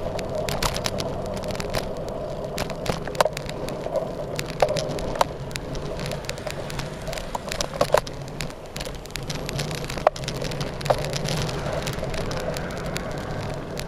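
Riding noise from a Specialized Tarmac road bike on asphalt: a steady rumble of tyres and wind, with irregular clicks and rattles scattered through.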